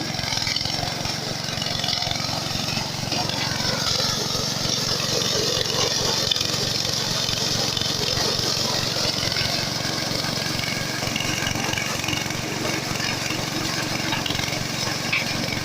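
Maize threshing machine running steadily with a continuous engine drone and a dense hiss of the threshing action.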